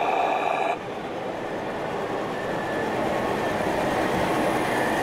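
Radio-controlled model trucks running on an indoor layout: a steady running noise with a few held tones, which changes abruptly about a second in to a softer, hissing mix.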